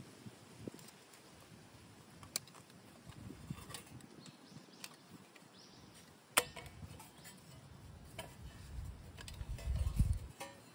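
Thin metal panels of a folding camp wood stove clicking and clinking as they are unfolded and fitted together, with one sharp metallic clack a little past halfway and a duller bump near the end as the stove is set on the ground.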